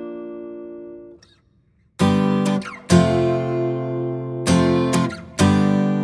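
Background music: acoustic guitar strumming chords. The first chord rings out and fades to a brief pause, then fresh strums come about every half second to second.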